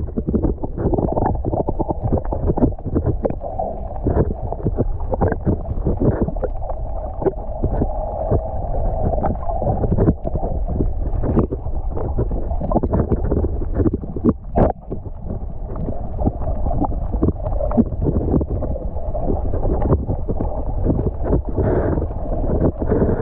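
Wind buffeting the microphone and water noise on a small fishing boat, with constant short knocks and thumps as the boat moves on choppy water.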